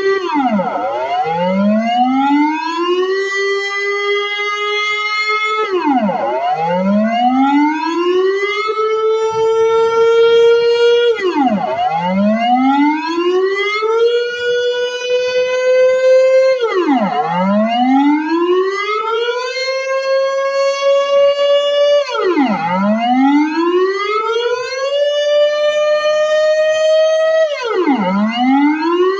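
Dutch air raid warning siren sounding its test signal: a loud wailing tone that repeatedly drops fast in pitch, climbs back over about two seconds and holds level, roughly every five and a half seconds.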